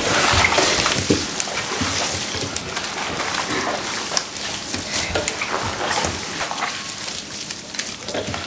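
Gloved hands tossing young radishes and their greens through thick, wet chilli seasoning paste in a stainless steel bowl. It is a continuous wet squelching and rustling, dotted with many small clicks and knocks.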